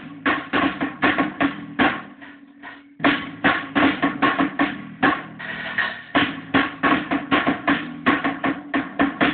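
A drum kit played with sticks in a rock rehearsal, bass drum, snare and cymbal hits in a quick steady beat, with an electric guitar playing along. The drumming drops away about two seconds in and comes back in full about a second later.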